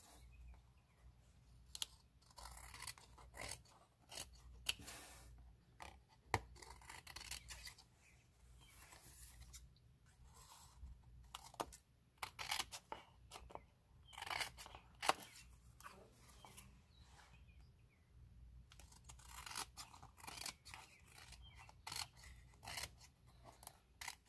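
Scissors cutting cardstock, trimming around card pieces: faint runs of short snips with pauses between them.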